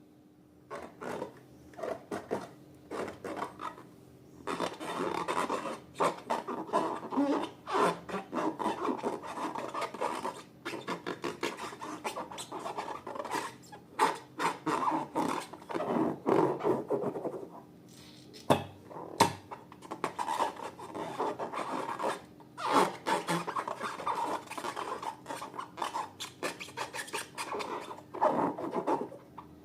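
Slime being mixed and worked: irregular sticky crackling, rubbing and scraping, with short pauses.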